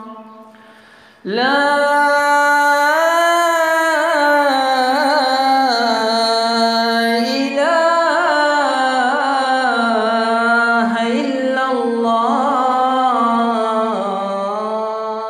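A man's voice chanting in the melismatic style of the Shia call to prayer: one long, ornamented phrase that slides up at its start about a second in, wavers and turns in pitch throughout, and fades out near the end.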